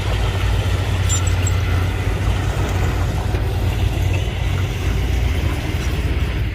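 Heavy diesel engine of earthmoving machinery running steadily with a deep, low rumble.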